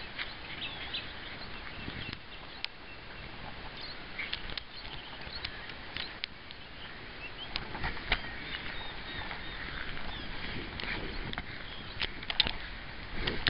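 Rustling outdoor ambience with scattered light clicks and knocks, and small birds chirping in the background.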